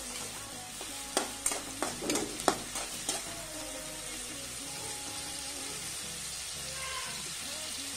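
Chopped onions sizzling in hot oil in a kadai on a high flame, being sautéed until soft. A slotted metal spatula scrapes and knocks against the pan several times in the first few seconds, then there is only the steady sizzle.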